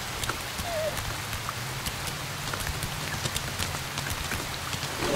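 Steady rain, with scattered individual drops ticking through it over a low steady hum.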